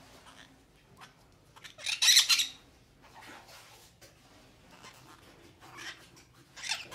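Orange-fronted parakeets (pericas atoleras) giving a loud, harsh squawk about two seconds in, followed by a few fainter short calls near the end.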